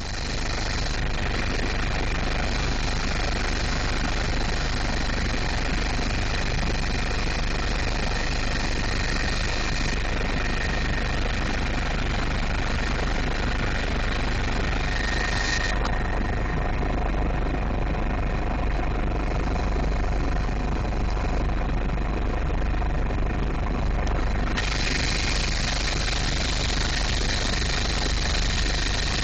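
Helicopter in flight, heard from inside the cabin: a steady, even drone of rotor and engine with a few faint high steady tones running through it.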